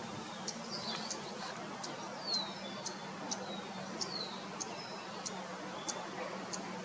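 Small birds chirping: a short high note repeated about twice a second, with a few falling chirps mixed in, over a steady low hum.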